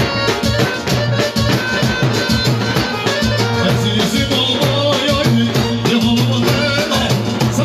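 Electronic keyboard played live and amplified through a PA speaker: loud dance music over a fast programmed drum rhythm, with a wavering high lead melody coming in about four seconds in.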